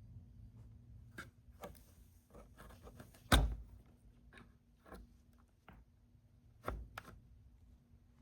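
Scattered light clicks and knocks in a small room, with a louder thump about three and a half seconds in and another near seven seconds, over a faint steady hum.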